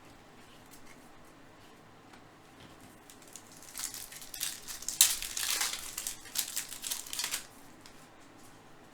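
Crinkling and rustling of plastic trading-card packaging being handled, in a run of about three and a half seconds starting about four seconds in.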